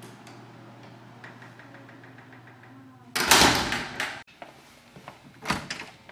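A door being opened and worked: a loud, noisy rush of about a second begins about three seconds in and stops abruptly, then a single thump near the end.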